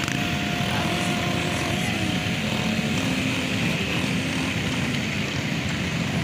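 Several ATV (quad bike) engines running at once, their buzzing notes rising and falling as the machines ride about.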